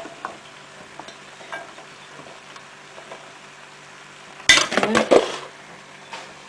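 Chopped carrots being tipped into a cooking pot: a few light knocks, then a louder clatter of vegetables and pan lasting under a second about four and a half seconds in.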